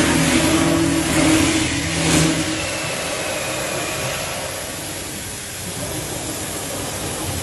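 CNC router's 5.5 kW spindle milling a wooden foundry pattern: a steady machine hum over the hiss of cutting. The low hum fades out about two and a half seconds in while the cutting noise goes on.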